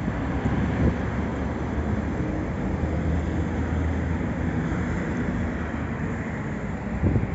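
Maserati MC20's 3.0-litre Nettuno twin-turbocharged V6 idling steadily through its exhaust, with a brief louder burst near the end.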